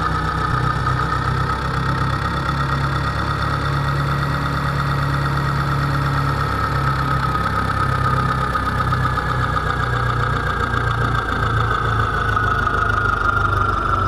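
Miniature model tractor running: a steady, fast engine chugging with a strong high whine over it that drifts slightly lower, as the tractor drives along.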